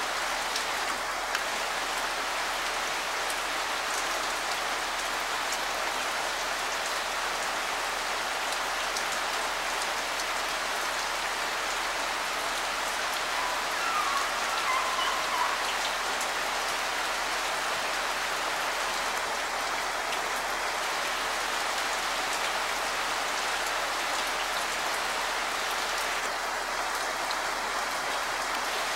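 Steady, heavy rain falling on foliage and wet ground.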